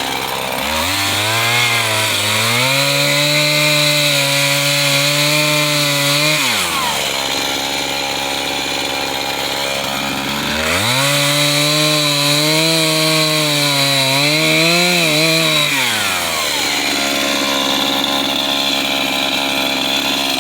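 Chainsaw engine throttled up twice from idle, each time held at high revs for about six seconds with slight wavers while cutting into a log, then dropping back to idle in between and near the end.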